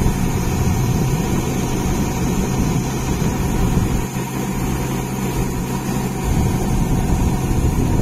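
Rice combine harvester's engine running steadily while its unloading auger discharges threshed grain into a trailer. The low hum of the engine shifts slightly about six seconds in.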